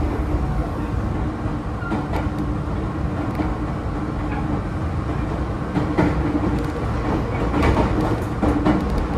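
Meitetsu electric train running, heard from inside the driver's cab: a steady rumble with scattered sharp clicks of the wheels over rail joints and points, at uneven gaps.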